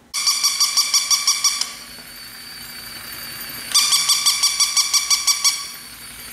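Battery-operated plush toy puppy's electronic bark: two runs of rapid, high-pitched beeping yips, about seven a second, each run under two seconds long. A fainter steady whir runs between them as the toy walks.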